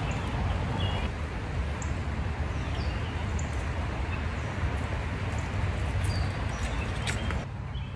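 Shallow river running over a stony bed, a steady rush of water with a low rumble under it, and a few brief high bird chirps above. The rush drops quieter near the end.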